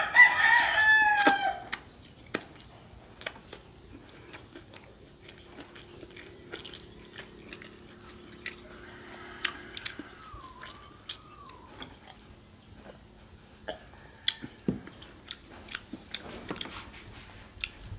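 Chewing and biting into crunchy fried chicken, with small crunches and wet mouth clicks throughout. A rooster crows loudly for about a second right at the start.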